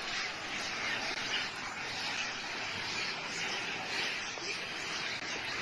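Steady outdoor street ambience from the monkey-swarm footage: an even wash of noise with no single event standing out.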